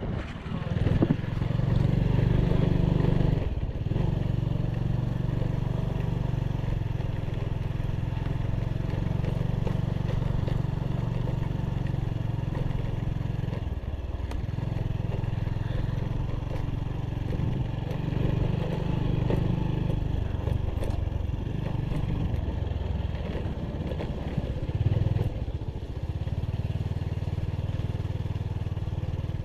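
Motorbike engine running steadily as it is ridden up a rocky road, easing off briefly a few seconds in and again about halfway through.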